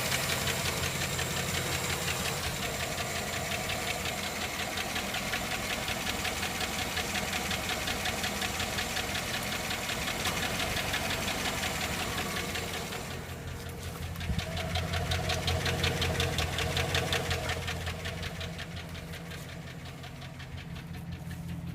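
2007 GMC engine running with a fast, regular knock in time with the engine, which the owner suspects is either a rod bearing or a valve. The engine gets louder for a few seconds a little past the middle, then settles.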